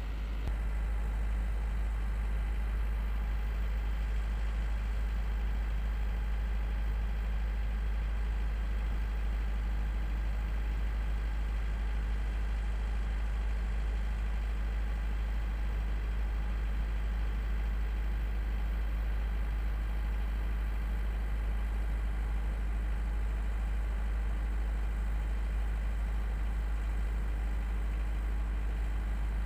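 Tugboat's diesel engines running steadily under load as it tows a container ship's bow away from the berth on a taut line, a constant deep drone.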